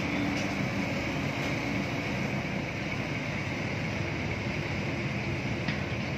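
Steady engine noise and road traffic, with a low engine hum strongest in the first two seconds.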